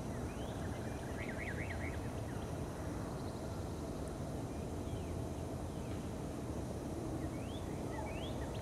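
Small birds chirping in short rising and falling calls over a steady low outdoor background rumble, with a quick run of chirps about a second in and more near the end.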